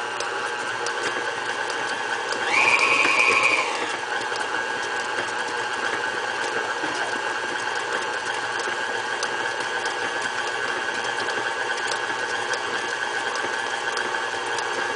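KitchenAid Artisan stand mixer running steadily with its dough hook, beating stiff cookie dough. About two and a half seconds in, its whine goes louder and higher for about a second, then settles back.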